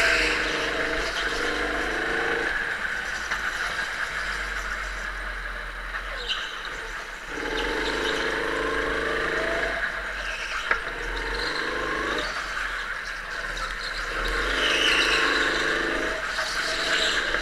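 Go-kart engine heard onboard, its pitched note rising in spells of a few seconds under throttle and dropping away between them, with tyre squeal on the smooth track surface.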